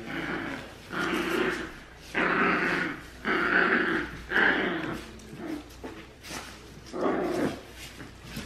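Small puppy growling in a string of short spells while tugging and shaking a plush toy held in a person's hand, with a brief lull a little past the middle.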